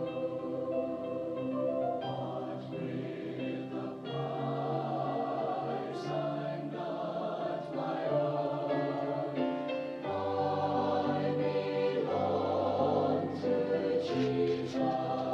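A college choir singing a sacred choral anthem in held chords. The singing swells a little louder about ten seconds in.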